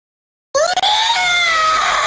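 Goat giving one long, screaming bleat that starts about half a second in, rising sharply and then slowly falling in pitch.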